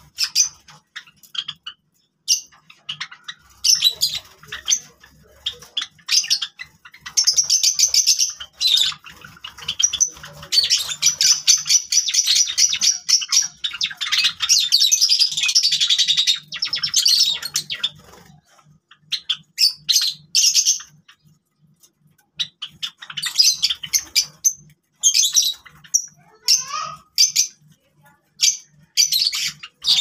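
A small flock of Java sparrows chirping: quick, high-pitched chips that run together into dense bouts of chatter several seconds long, with brief pauses between them.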